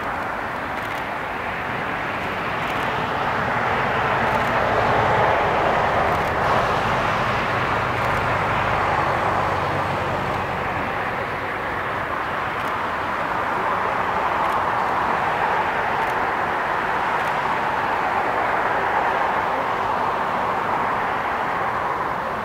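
Distant jet airliner engines at taxi power: a steady rushing hum that slowly swells and fades.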